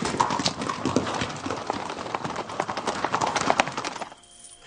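Horses' hooves clattering rapidly, as of horses ridden at speed, cutting off about four seconds in.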